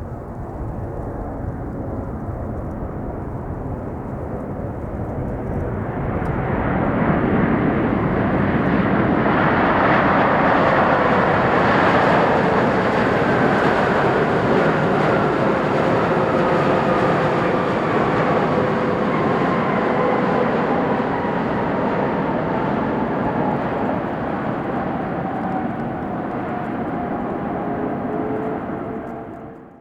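Boeing 787-8 Dreamliner's Rolls-Royce Trent 1000 turbofans on a landing pass. A steady jet rumble grows louder and peaks about eight to fourteen seconds in, and the engine whine falls in pitch as the airliner goes by, then carries on until it cuts off abruptly at the end.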